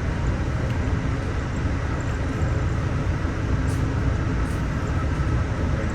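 Steady running rumble of a moving Amtrak passenger train heard from inside the car: wheels on rail and car body noise, with a couple of faint high ticks about four seconds in.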